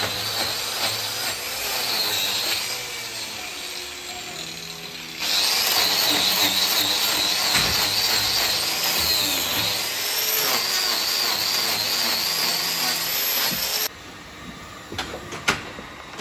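Angle grinder with a trimming disc cutting into a cow's hoof, a high whine that wavers in pitch as the disc bites. It gets louder about five seconds in and stops abruptly near the end, leaving a few sharp clicks.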